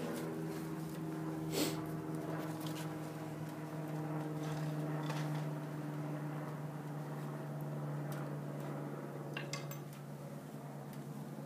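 Pallet-wood pieces knocking and clinking against the steel ammo-can stove as they are pushed into its firebox: a sharp knock about a second and a half in and another about nine seconds in. A steady low hum runs underneath.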